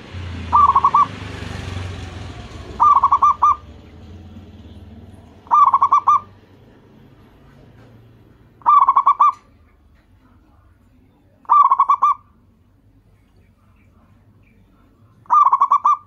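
Zebra dove (perkutut) cooing: six short, rapidly pulsed coo phrases, each under a second, repeated every few seconds. A low rumbling noise sits under the first few seconds.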